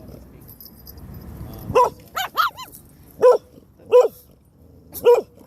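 Brussels Griffon puppy barking in high, short yaps: one bark, then a quick run of three, then three single barks about a second apart.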